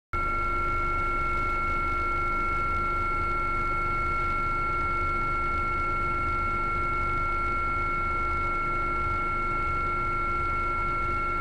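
Steady drone of a helicopter's turbine engine and rotors, heard from aboard: constant high-pitched whining tones over an even rushing noise.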